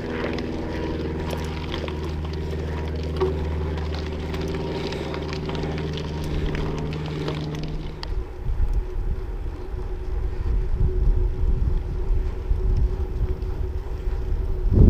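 Motor traffic on the road alongside: a steady engine hum that cuts off abruptly about eight seconds in, followed by gusty wind buffeting the microphone.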